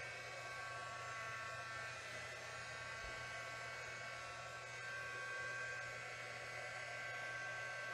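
Small electric air blower running steadily, a constant hum with a high multi-tone whine and a rush of air from a hand-held hose nozzle blowing across wet poured acrylic paint.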